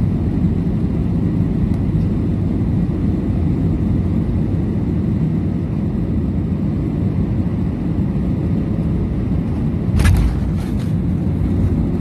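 Steady low rumble inside a jet airliner's cabin during landing. Near the end comes a short, sharp clatter.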